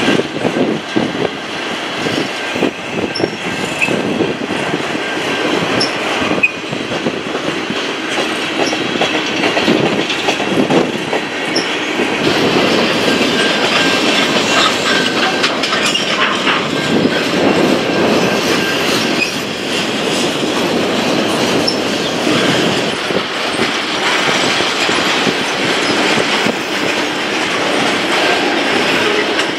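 Freight train cars rolling past close by: a continuous rumble of steel wheels on rail with repeated clicking over the rail joints and a thin wheel squeal at times.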